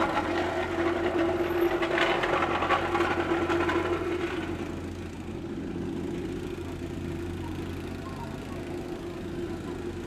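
Vibrating plate compactor working asphalt: its small engine runs with a dense, fast rattle from the vibrating plate, loudest over the first four seconds, then easing to a lower steady run over a constant low engine hum.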